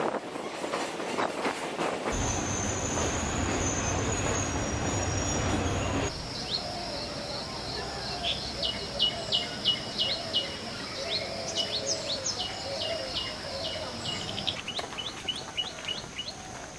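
A train running on its rails, a steady rumble and rattle, cuts off abruptly about six seconds in. Birds then call, with quick repeated high chirps over a steady high-pitched background.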